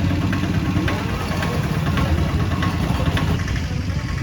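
An engine running steadily with a low rumble, with light regular ticks about twice a second.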